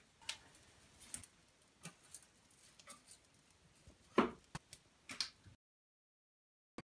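Scattered light clicks, then a few louder knocks about four and five seconds in as a log is loaded into a wood-burning stove. The sound cuts out suddenly after about five and a half seconds.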